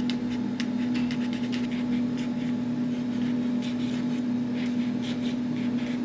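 Origami paper button toys pressed and squeezed by fingers, giving a run of irregular light paper clicks and crinkles. A steady low hum runs underneath and is the loudest part.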